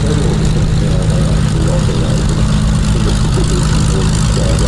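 Piston aero engine of a propeller-driven warbird running steadily at low power, a deep even drone.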